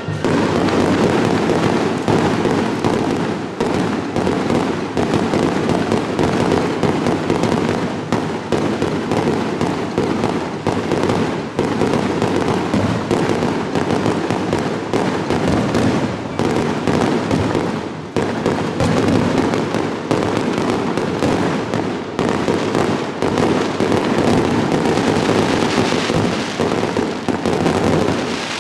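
Aerial fireworks display: a dense, unbroken crackling and popping of many shell bursts going off rapidly, with no pauses.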